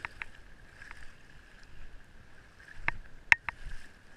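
A handful of irregular sharp clicks and taps, clustered near the start and again about three seconds in, over a faint steady high-pitched tone.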